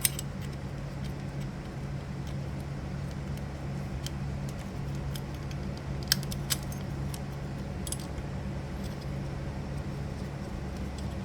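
Small metal parts of an electromechanical pinball score reel clicking and clinking as they are handled and fitted back together, with sharper clicks at the start and twice about six seconds in, over a steady low hum.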